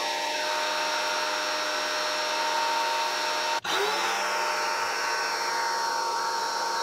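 Teande 2300 PSI electric pressure washer running with its motor and pump whining steadily under the hiss of spray, as the stock soap applier lays soap onto the car. The sound breaks off for an instant about halfway through, then runs on again.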